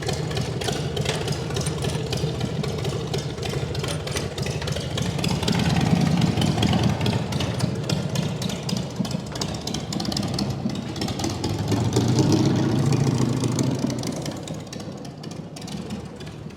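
Motorcycle engine running, swelling louder twice and fading away near the end.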